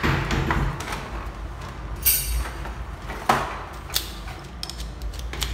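Hands handling a shower set in plastic blister packaging and a paper catalogue sheet: rustling and crinkling with a few sharp knocks, the loudest a little after three seconds in.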